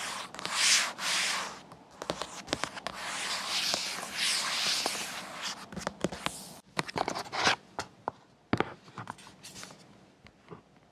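Fingertips rubbing and sliding over the aluminium lid of a MacBook Air, a dry hiss dotted with small taps. After about seven seconds the rubbing stops and a few sharp taps and clicks follow as the lid is lifted open.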